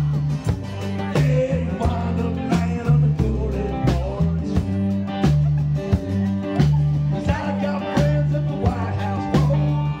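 Live band playing an instrumental stretch of a bluesy rock song: guitar over a moving bass line and a steady drum beat.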